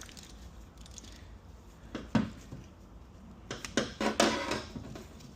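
Metal clicks and rattles from a transmission's one-way clutch being handled and turned by hand to check that it works: one sharp click about two seconds in, then a short cluster of clinks and rattles.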